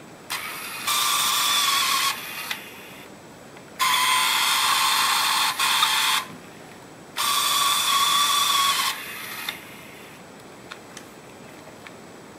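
Minolta Autopak-8 D6 Super 8 movie camera's electric motor mechanism whirring in three runs of about two seconds each, each starting and stopping abruptly.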